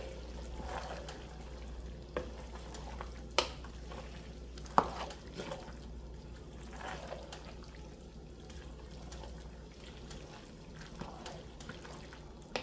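Wooden spoon stirring a saucy mix of macaroni, cabbage and tofu in a pot, with three sharp knocks about two, three and a half and five seconds in.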